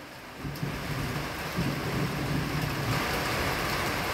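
Rain falling on a waterlogged road, a steady hiss of drops splashing on standing water that starts about half a second in and grows louder near the end, with a low rumble underneath.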